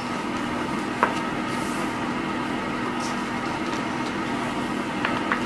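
Steady mechanical room hum holding a few fixed tones, with faint handling clicks as a picture book's page is turned: one sharp tap about a second in and two quick clicks near the end.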